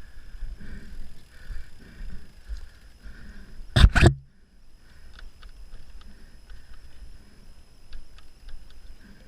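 A Vivid R2 making a weird noise: a rhythmic swishing squeak repeating about one and a half times a second, with two sharp loud clicks about four seconds in and faint ticking afterward, over low wind rumble on the microphone.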